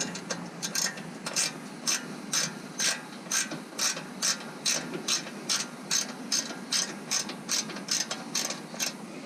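Hand socket ratchet clicking in an even rhythm, about two clicks a second, as a bolt is worked loose with it.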